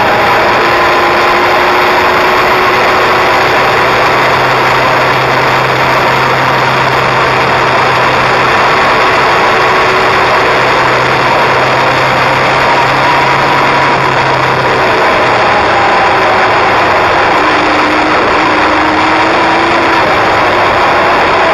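Kawasaki inline-four sport motorcycle riding at a fairly steady speed, its engine note drifting only slightly up and down under heavy wind rush over the onboard microphone.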